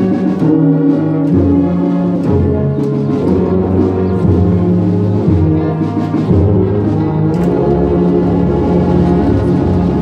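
Brass band playing, with tubas and euphoniums carrying held low notes under the melody.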